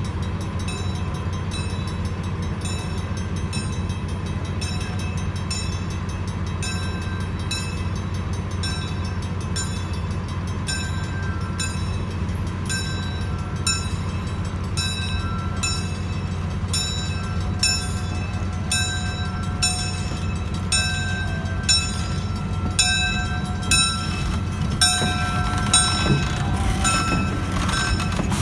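Railroad grade-crossing bell ringing at an even pace of a little over one strike a second, over the steady low rumble of a slow-moving switcher locomotive and its cars. The bell grows louder over the last several seconds as the locomotive comes alongside.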